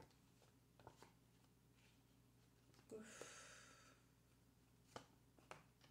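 Near silence: quiet room tone, with a few faint clicks and one soft hiss about three seconds in.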